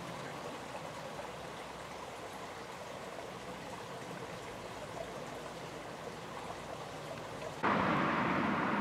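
A steady, even outdoor rushing noise, like running water. Near the end a much louder steady rush cuts in abruptly.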